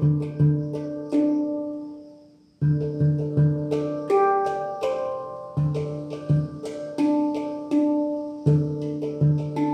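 Handpan played as a slow melody of single struck notes, each ringing and fading. Just after two seconds in, the notes die away to a brief silence before the playing resumes.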